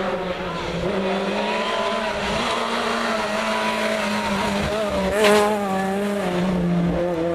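Rally car engine running at high revs as the car approaches and passes close, loudest about five seconds in, then pulling away.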